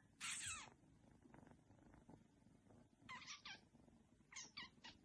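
A cat's short, high calls that fall in pitch: one about a quarter second in, two about three seconds in, and three more in quick succession near the end.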